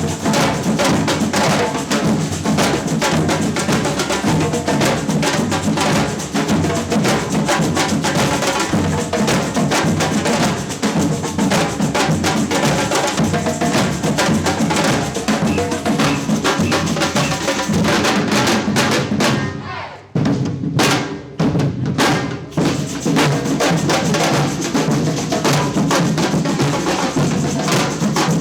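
Samba percussion band playing a funk groove on drums, with bass drums and snares. About two-thirds of the way through, the groove drops out for a short break of a few separate hits, then the full band comes back in.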